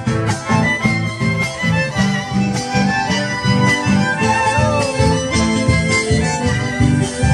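Folk band playing: acoustic guitars strummed in a steady, even rhythm while violins and an accordion carry the melody above them.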